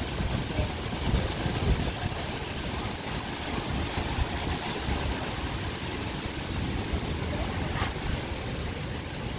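Wind buffeting the microphone: a gusty low rumble over a steady outdoor rush, with a single sharp click about eight seconds in.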